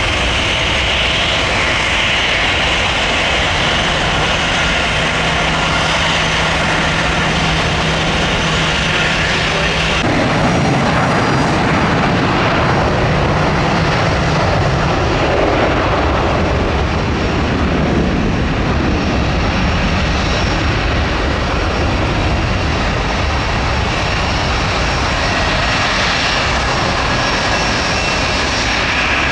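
Jet airliner's twin rear-mounted engines at takeoff power: a loud, continuous rushing roar. A low steady hum runs under it for a few seconds, and the sound changes abruptly about ten seconds in.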